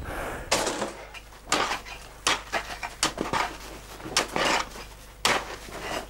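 Long-handled iron hand tool chopping and scraping into packed snow and ice, an irregular crunching strike about once a second with a few sharper knocks among them.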